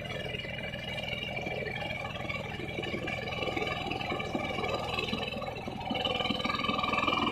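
Two-wheel hand tractor's engine running steadily while ploughing a flooded rice paddy, growing louder about six seconds in.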